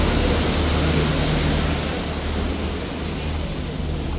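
Sightseeing boat's engine running with a steady low hum under a rush of wind and water noise; the rush eases a little about halfway through.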